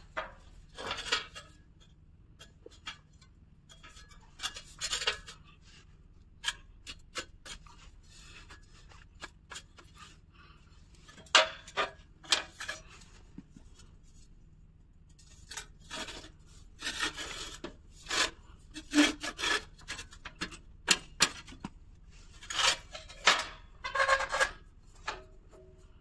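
Galvanised perforated sheet-steel cable tray being bent and handled by hand on the floor: scattered metal scrapes, rubs and sharp clicks in short irregular clusters, with quiet gaps between them.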